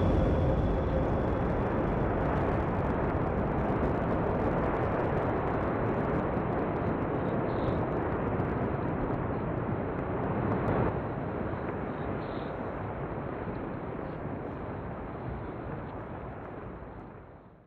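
Deep, rumbling roar of a blast in an open-pit mine as the dust cloud rolls out, slowly dying down and fading out at the end.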